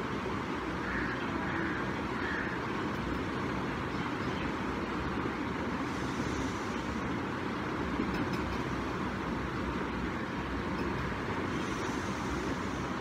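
Steady background noise with no distinct events, a constant even hiss and hum.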